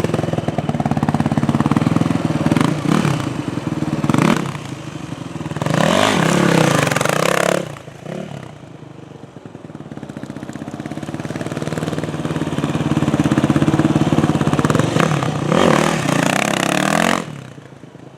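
Dirt bike engine running and revving hard in several bursts, dropping back to a lower idle between them and cutting back sharply near the end.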